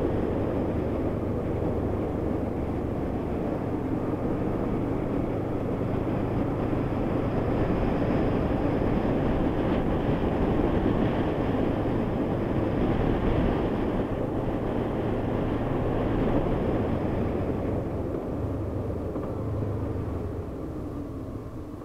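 Honda VFR800's V4 engine running under way, mixed with rushing wind noise. The sound swells mid-way and eases over the last few seconds as the bike slows.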